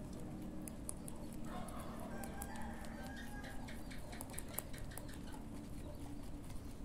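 Rabbits chewing banana leaf close to the microphone: a quick run of small crisp crunching clicks, several a second.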